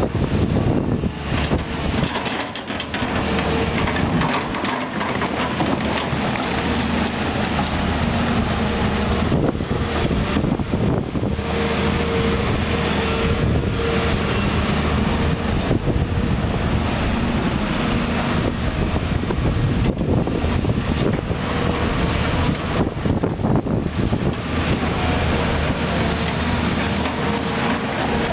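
Volvo EC210B tracked excavator's diesel engine running under load as the boom and bucket dig through mud. A steady engine note whose pitch comes up in stretches as the hydraulics work.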